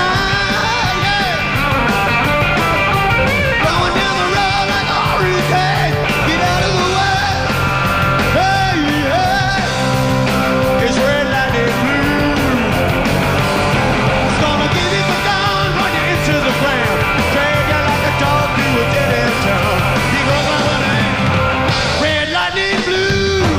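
Live rock and roll band playing an instrumental passage: an electric guitar lead with bending notes over bass and drums.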